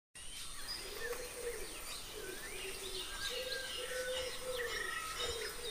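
Outdoor birdsong: many short chirps and whistled calls, with lower arching calls repeating about twice a second over a steady high tone.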